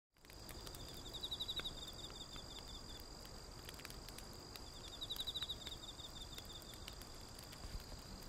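Insects singing: two long pulsing trills over a steady high-pitched drone. A campfire crackles with scattered sharp pops.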